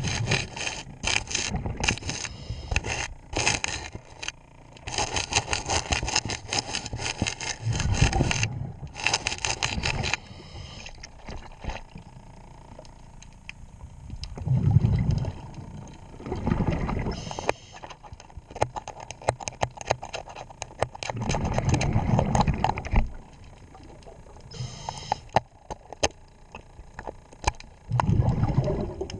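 Metal scraper rasping barnacles off a boat's propeller gear underwater, in fast runs of strokes for the first ten seconds and then in scattered clicks. A diver's exhaled regulator bubbles rush in deep bursts every several seconds.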